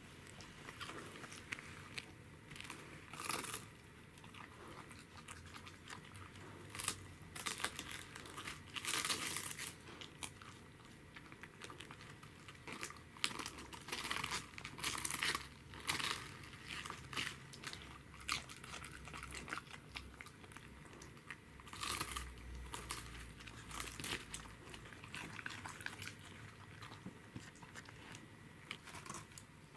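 A Pembroke Welsh corgi biting and chewing raw cabbage leaves: irregular crisp crunches that come in clusters, with some crinkling of the leaves.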